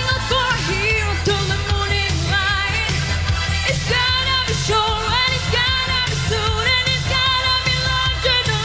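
A woman singing a pop song live into a microphone over pop accompaniment, her voice holding and bending long notes.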